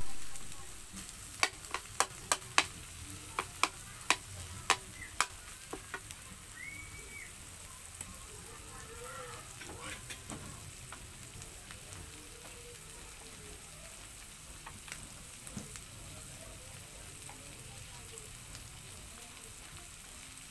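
Corned beef and sliced hotdog sizzling in a wok with a steady hiss. A spatula clacks against the pan about a dozen times during the first six seconds as the meat is stirred, then only the sizzling goes on.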